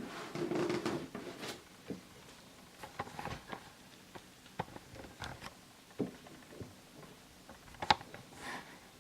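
Hands wrapping a pair of sneakers: scattered rustling of the wrapping with light clicks and taps, busier in the first second or so, then sparse handling noises with a couple of sharper ticks near the end.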